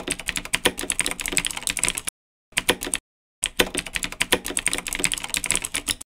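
Typing sound effect: rapid key clicks in three runs, broken by two short dead-silent gaps at about two seconds and three seconds in.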